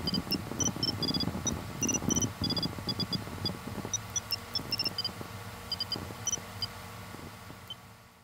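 A quick run of short electronic beeps at several different pitches, like a simple beeping tune, over a low rumble that dies away about halfway through; it all fades out near the end.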